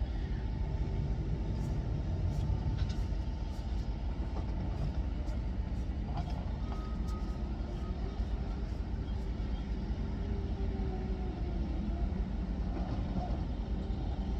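Steady low engine-like rumble with a few faint clicks.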